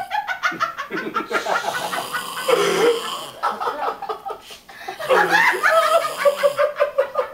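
Stifled laughter in quick, breathy bursts that dies down and breaks out louder again about five seconds in.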